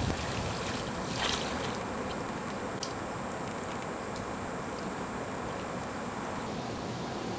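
Steady wash of outdoor noise, wind on the microphone over river water, with one brief louder burst just over a second in and a few faint short clicks.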